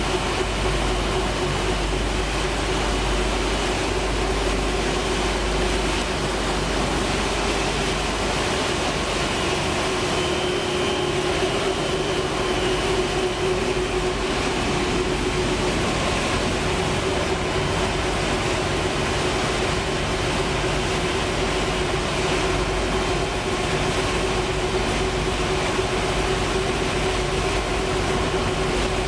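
Machinery of a dog food production line running: a steady mechanical drone from its electric motors and drives, with a constant hum.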